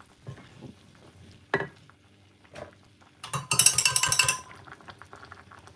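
A wooden spoon knocks against an aluminium cooking pot four times, most loudly about a second and a half in. Past the middle comes about a second of metal cutlery clinking and rattling with a ringing edge.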